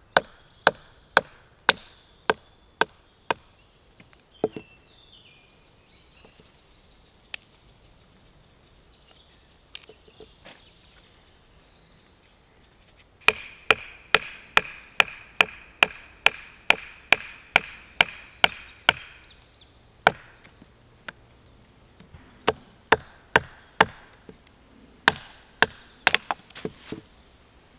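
Sharp wooden knocks of a baton striking the spine of a short, thick-bladed bushcraft knife, driving it down through an upright stick to split it (batoning). The knocks come about two a second in runs: one at the start, a longer one from about halfway, and more near the end, with a few scattered knocks between.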